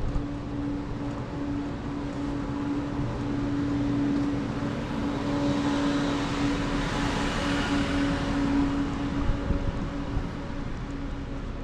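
A road vehicle passing, its tyre and engine noise swelling to a peak about seven seconds in and then fading, over a steady low hum.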